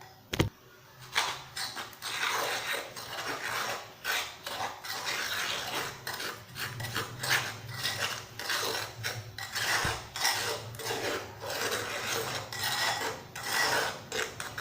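Dry mud-and-sand chunks being crushed and crumbled, a long irregular run of gritty crunching and rubbing. It opens with a single sharp click.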